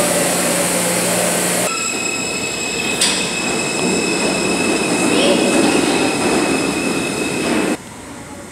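New York City subway trains moving through the station with a steady rumble of wheels on track. After an abrupt change, a steady high-pitched tone rings over the rumble, with a sharp click about three seconds in. Near the end the train noise cuts off suddenly, leaving the quieter hum of the platform.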